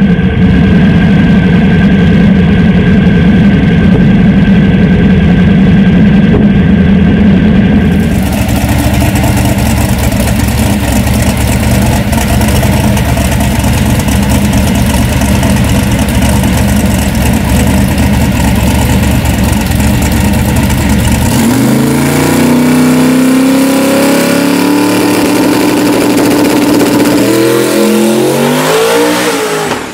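Drag-racing Chevy S10 pickup's engine running loud and steady, first heard from inside the caged cab. After about eight seconds it is heard from outside, and in the last third the engine revs in repeated rising sweeps, climbing once more at the end as the truck pulls away down the strip.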